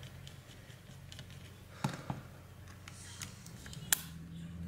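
Plastic housing of an Aspera F28 flip phone clicking and snapping as it is pried apart by hand: small ticks throughout, two sharp clicks about two seconds in and the loudest snap near the end.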